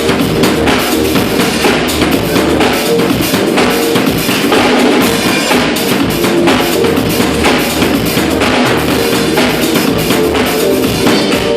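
Dance music with an acoustic drum kit playing along, kick drum and snare hits over a steady beat.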